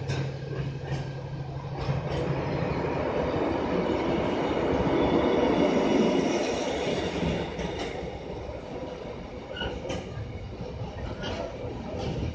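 Freight train's loaded container wagons rolling past close by, with wheels clattering over rail joints and a high wheel squeal loudest around the middle. A steady low engine hum fades out about two seconds in.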